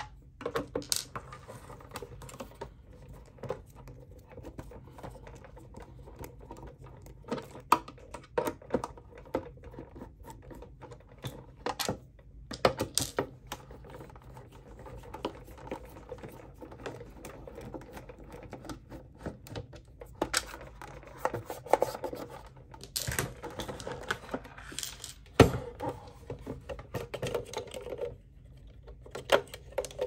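Hard plastic parts of a Dyson Pure Cool Me BP01 fan being handled and pulled apart during disassembly: irregular clicks, knocks and scraping of the plastic housing and base, with one sharper knock near the end.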